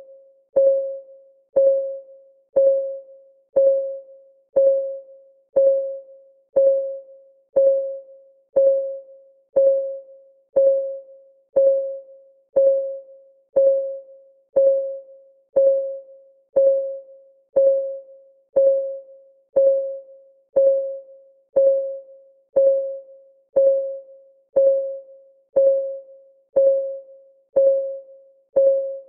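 Countdown timer's clock-ticking sound effect: a short, pitched tick once a second, each dying away quickly, in an even, unbroken rhythm.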